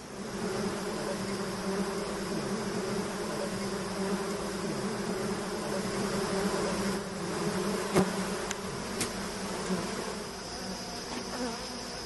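A colony of small wild honey bees buzzing in a steady, low hum around their disturbed comb, with a sharp click about eight seconds in.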